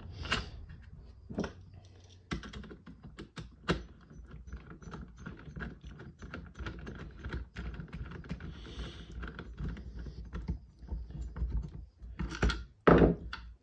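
Small screws being handled and driven with a hand screwdriver into a 3D-printed carbine kit: a run of irregular light clicks and ticks of the driver and parts, with a couple of louder knocks near the end.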